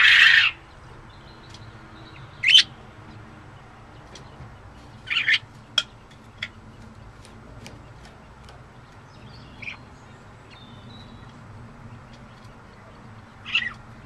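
Budgerigar calling: a loud, harsh call right at the start, then short chirps about two and a half, five and six seconds in, and one more near the end.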